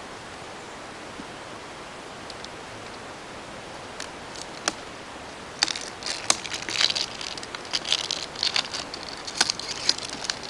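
Plastic shrink wrap being picked at and pulled off a box: crinkling and crackling with sharp clicks, starting about halfway through after a few seconds of steady background hiss.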